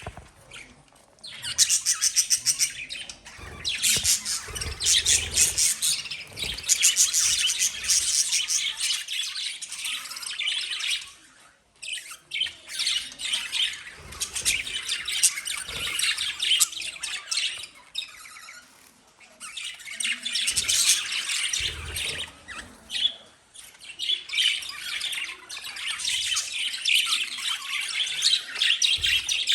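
Pet lovebirds chirping and squawking in rapid, shrill bouts, starting after a short lull and broken by a few brief pauses.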